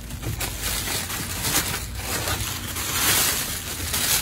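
Clear plastic packaging bag crinkling and rustling as it is handled and pulled off a dog grooming dryer, getting louder near the end.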